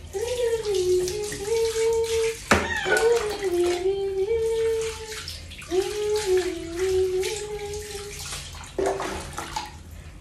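A cat meowing in long, drawn-out, wavering cries, three in a row and a shorter one near the end, while it is being bathed. Water is poured over it from a scoop and splashes on the tile floor throughout, with a sharp knock about two and a half seconds in.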